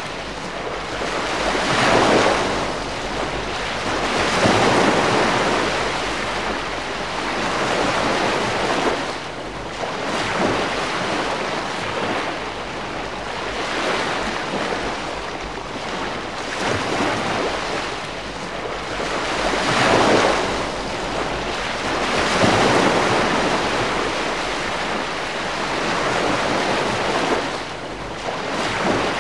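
Calm sea washing onto the shore: gentle waves surging in and drawing back, swelling and falling every few seconds.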